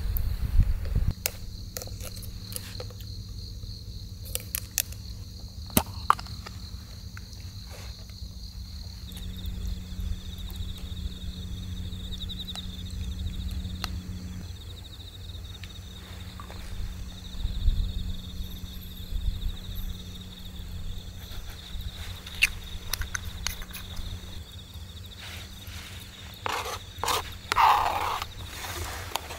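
Small clinks and knocks of camp cookware and a glass jar being handled. Near the end there is louder scraping as chopped green onions are pushed off a plastic cutting board into a metal pot. A steady high insect trill runs underneath.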